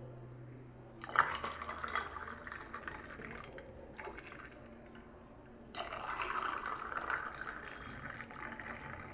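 Lemon tea poured into tall glasses over ice cubes: one glass filled for about three seconds, then after a short pause a second pour into the other glass.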